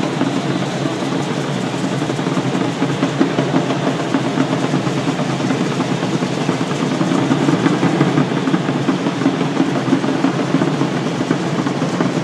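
Drums and the dense rattling of many dancers' ankle rattles from an Aztec dance troupe performing, a continuous, steady clatter.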